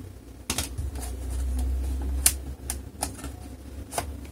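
Sharp plastic clicks and knocks, about five spread through a few seconds, from the laptop's DVD drive being pushed and worked into its bay against the case. The drive is not yet clipping in. A low rumble of handling runs through the middle.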